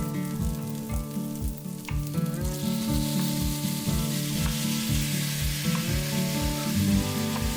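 Food sizzling as it fries in a pan, the hiss growing louder about two and a half seconds in. Background music with a steady beat runs underneath.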